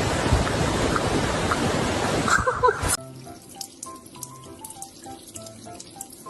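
Running water, like a tap, splashing for about three seconds, then cutting off abruptly. A quiet, simple melody of single notes with light clicks follows.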